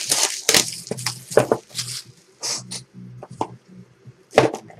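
Plastic shrink-wrap on a sealed box of trading cards being slit and torn open: a string of short crinkling, crackling rustles, the loudest near the end.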